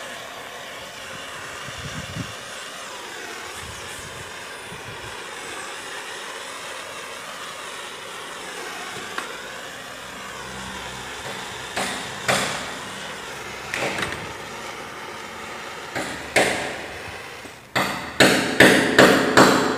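Small propane torch burning with a steady hiss while heat-shrinking a cable's breakout boot. In the second half come several sharp knocks, with a quick run of about five near the end.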